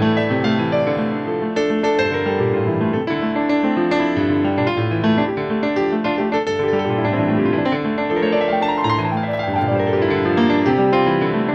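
Background music: a piano piece, with many notes and chords played throughout.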